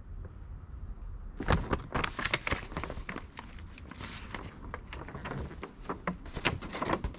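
Paper brochures and a bag being handled: irregular rustling and crinkling with sharp little clicks, starting about a second and a half in.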